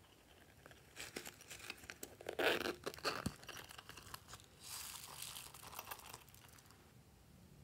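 A small fabric pouch's zipper rasping open, then a spill of small foam beads rustling and pattering as they pour out onto soft slime.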